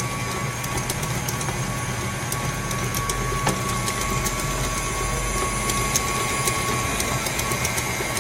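KitchenAid Classic stand mixer running steadily, its motor giving a constant hum and whine as it beats a thick butter-based chocolate frosting in the steel bowl.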